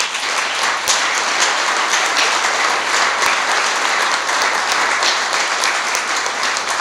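Audience applauding steadily, the clapping starting all at once.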